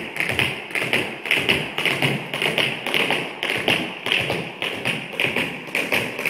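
Tap shoes striking a hard studio floor in rapid, continuous runs of taps as a dancer performs an intermediate tap combination.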